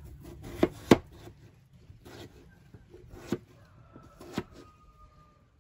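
Kitchen knife chopping a peeled potato into small cubes on a plastic cutting board: several sharp knocks at uneven intervals, the loudest about a second in.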